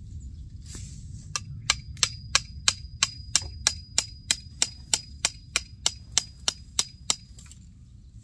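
Hammer striking the top of a thin metal fence stake, driving it into the ground to hold up an animal net. There are about nineteen even blows, roughly three a second, each with a short metallic ring; they begin about a second in and stop about a second before the end.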